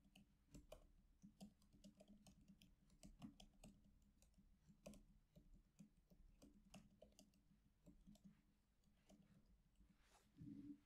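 Faint, irregular clicking of computer keys and mouse buttons, a few clicks a second, with a brief low sound near the end.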